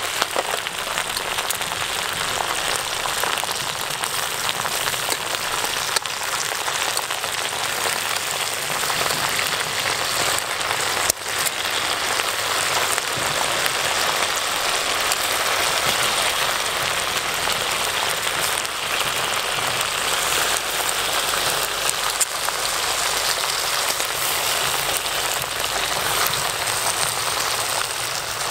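Pot of chicken boiling hard over a wood fire: a steady bubbling hiss, with a few sharp clicks of metal utensils against the pot.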